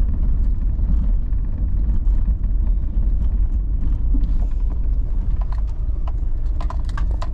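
Steady low rumble of a car, with scattered light clicks and knocks, more of them near the end.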